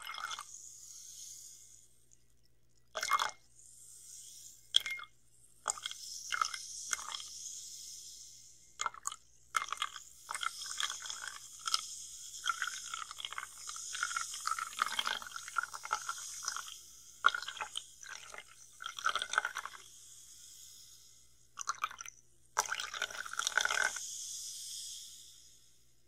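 Carbonated water in a glass close to the microphone, fizzing with a crackly hiss, broken by irregular clicks and splashy bursts as it is poured.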